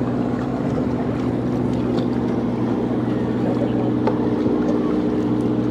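A steady low mechanical hum made of several held tones, over a wash of noise.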